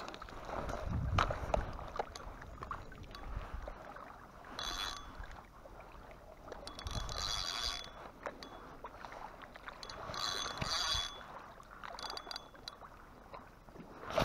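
Spinning reel being cranked in about four short bursts, its gears whirring, after some knocks and handling noise in the first two seconds.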